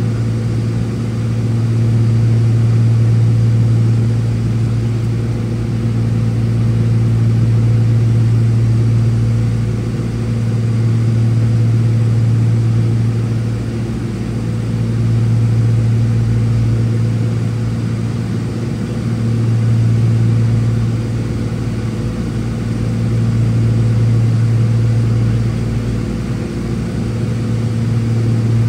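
Steady drone of the Cessna 402C's twin piston engines and propellers heard inside the cabin, with a low hum that slowly swells and fades about every four seconds.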